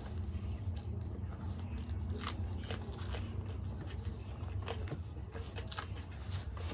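Close-miked eating: chewing and biting into methi paratha and raw green chillies, with several short sharp crunches, most of them in the second half. A steady low hum runs underneath.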